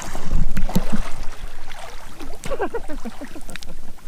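Water splashing and gurgling close around a camera held at the surface by a snorkeller drifting in a strong current, with sharp bubbly clicks and sloshes.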